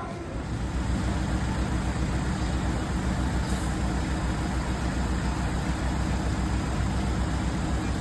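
Steady road and tyre rumble of a moving MG4 electric car, with no engine note, growing louder about a second in and then holding.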